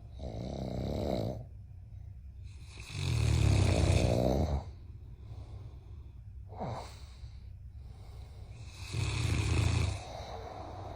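A giant mastiff puppy and a man snoring loudly: three long snores a few seconds apart, with a short sound falling in pitch a little past the middle.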